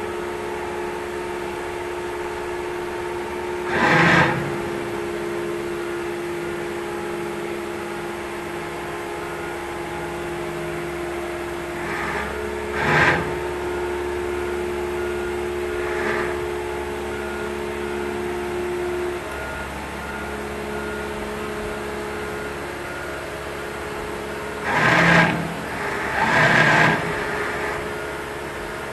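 Steady machine hum with several held tones, one of which drops out about two-thirds of the way through, broken by four short, louder rushes of noise: one about 4 s in, one about 13 s in, and two near the end.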